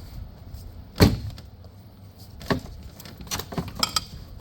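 Clunks and clicks of parts and tools being handled on a truck: one loud thump about a second in, then several lighter knocks and clicks.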